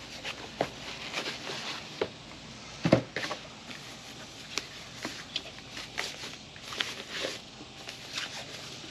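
Packaging being handled as a portable power station is unboxed: a cardboard box and a soft protective wrapping sheet rustle and crinkle, with scattered light clicks and knocks and one louder knock about three seconds in.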